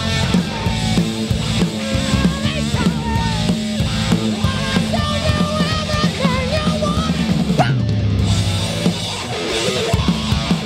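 Rock band playing loud live music: electric guitar lead with wavering, bent notes over bass and drums, with a falling slide about eight seconds in.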